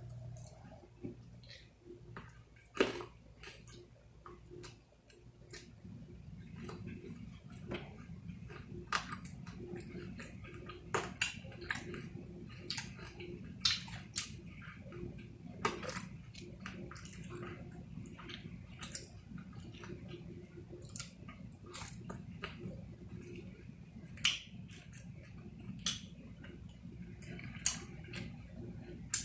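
A person chewing food close to the microphone, with irregular sharp clicks and crunches throughout.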